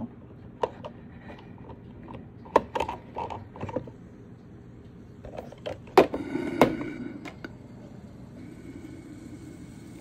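Small plastic clicks and knocks as the coffee maker's brew basket and hinged lid are handled, then two sharp snaps about six seconds in as the black plastic lid is shut. A faint steady hum with a thin high tone comes in near the end.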